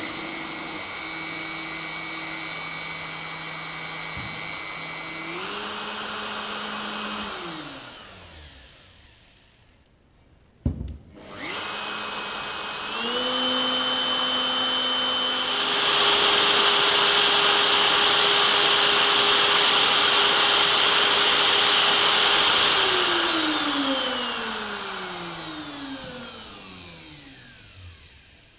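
Elu 1/4-inch router's electric motor, just rebuilt with new bearings, test-run twice. It starts, steps up in pitch, and is switched off to wind down. After a click it starts again, steps up twice to a louder, higher whine, then is switched off and spins down with falling pitch.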